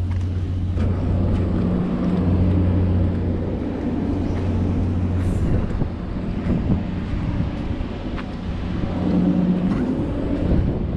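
Steady low drone of a running ship's engine, strongest in the first half and fading back into rougher noise after about five and a half seconds, under wind on the microphone and scattered footsteps.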